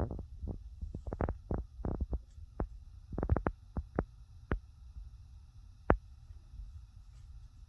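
Irregular sharp clicks and taps of parts being handled and fitted together over a low steady hum, with the loudest click about six seconds in.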